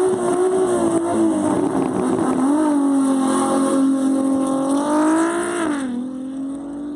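Turbocharged six-cylinder engine of an Audi A3 at full throttle, launching off the drag strip start line and accelerating away. The engine note climbs, dips briefly about two and a half seconds in, and drops sharply near the end as it shifts gear. It grows quieter as the car pulls away.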